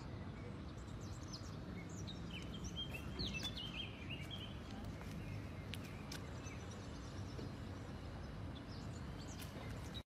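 Faint outdoor ambient noise with birds chirping: a cluster of short, high chirps about two to four seconds in.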